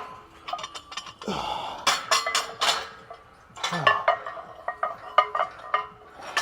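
Loaded barbell and its iron weight plates clanking, with clusters of sharp metallic knocks and clinks. The plates sit loose on the sleeves without collar clips, so they shift and knock against each other and the bar.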